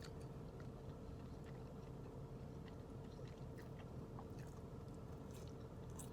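A person chewing a soft pancake mini bite dipped in syrup, with faint, scattered wet mouth clicks over a steady faint hum.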